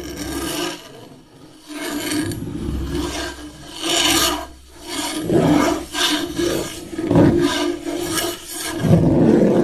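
Repeated scraping strokes, about one a second, over a faint steady hum.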